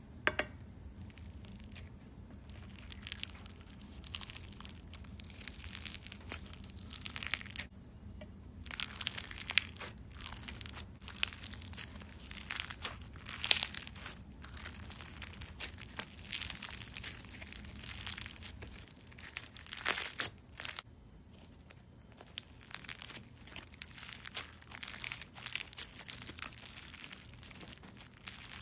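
Crunchy slime being squeezed and pressed by hand, giving dense runs of fine crackling clicks in irregular waves, with short pauses between handfuls.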